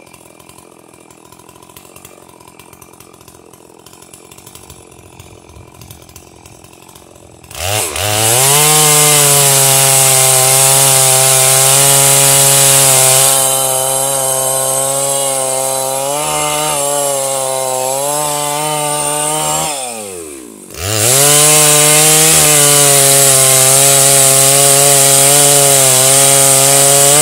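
Two-stroke chainsaw in a homemade log mill starting up about seven seconds in after a quiet stretch of faint ticks, quickly revving up and running steadily at high revs. Near the 20-second mark its revs drop sharply, then it picks back up and runs steadily again.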